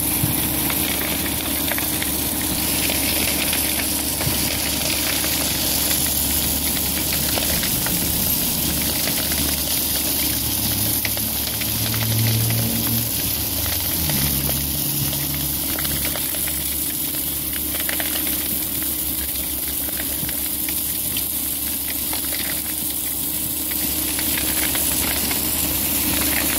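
Stone-slinger truck's conveyor throwing gravel in a steady rushing stream, with the truck's engine running underneath; the engine note shifts about halfway through.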